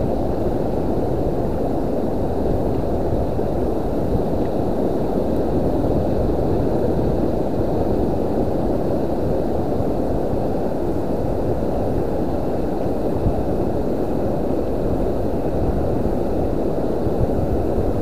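Steady low rushing noise of wind buffeting the microphone over choppy, shallow sea water.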